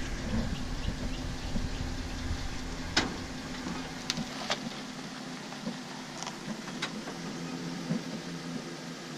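Chevrolet pickup truck's engine idling steadily, with a heavier low rumble that eases about three seconds in and a few light clicks.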